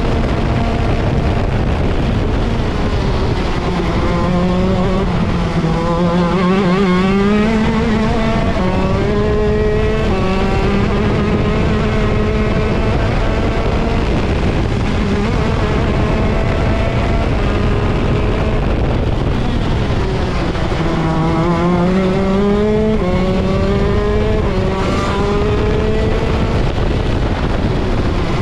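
Onboard sound of a ROK Shifter kart's 125cc two-stroke engine at racing speed. The revs climb hard out of corners, at around 3 to 8 seconds in and again near 21 to 23 seconds, and the pitch steps between gears in a repeated rise-and-drop pattern.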